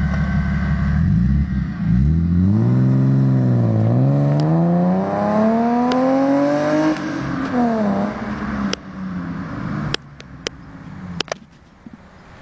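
BMW E36 320i straight-six through a Magnaflow exhaust: after a steady run, the engine note climbs, dips briefly about four seconds in, climbs again until about seven seconds in, then drops away and goes quiet. A few sharp clicks follow near the end.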